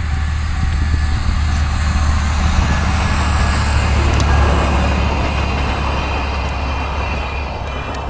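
JNR Class DE10 diesel-hydraulic locomotive and its old-type passenger coaches passing by: a deep engine and wheel rumble that swells to its loudest about halfway through, then fades as the train moves away. A level-crossing bell rings faintly behind it.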